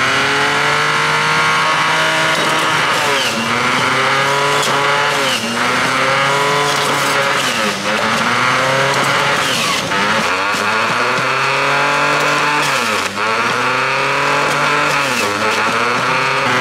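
Electric centrifugal juicer's motor running with a loud whine, its pitch sagging and recovering about six times as fruit chunks are pressed down the feed chute onto the spinning cutter.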